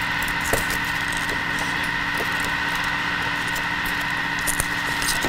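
Thermomix running steadily on speed 1.5 while heating sugar syrup toward 120 °C: an even machine hum with a steady whine. A few soft clicks of gelatin sheets being handled, about half a second in and again near the end.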